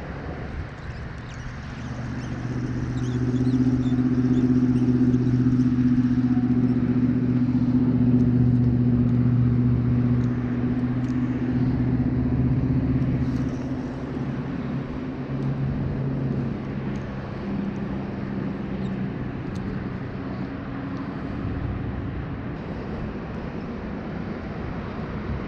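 A motor vehicle's engine hum that grows louder over a couple of seconds and holds steady for several seconds. It then eases off and drops a little in pitch, staying in the background until the end.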